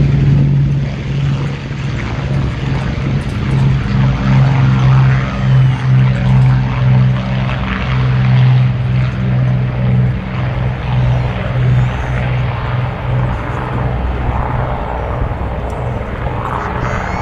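Piston-engined propeller aircraft flying, its engines giving a steady low drone whose loudness wavers up and down.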